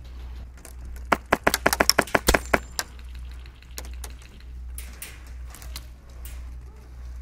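Airsoft rifle firing a rapid string of about a dozen sharp shots in under two seconds, starting about a second in.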